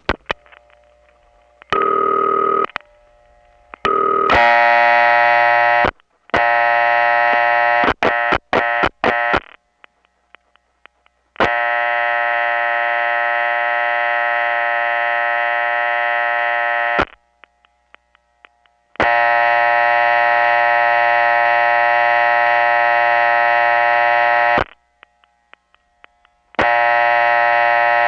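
A 1979 call over a number one step-by-step telephone exchange: brief tones and a flurry of switch clicks, then the supervision test line in the far step office, a harsh buzzing tone that comes on for about five seconds and goes off for about two, over and over, with relay clicks in the gaps.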